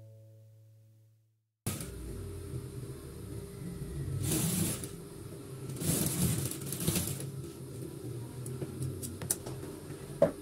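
A musical note fades out in the first second; then, after a brief silence, a Typical industrial sewing machine runs with a steady hum, getting louder in two spells of stitching about four and six seconds in. A sharp click comes near the end.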